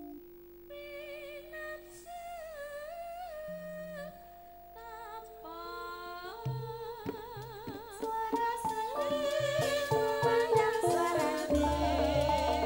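Live Javanese band music: a wavering melody over held keyboard notes, then kendang drum strokes come in about six seconds in and the full band builds up, louder, with a low bass entering near the end.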